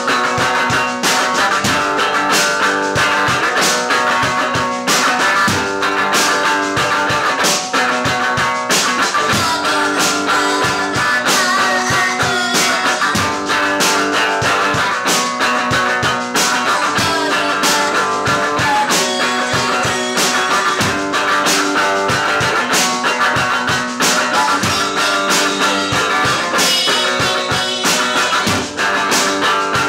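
Rock music led by a Gibson electric guitar, played steadily throughout with sharp regular strokes; a woman's voice sings near the end.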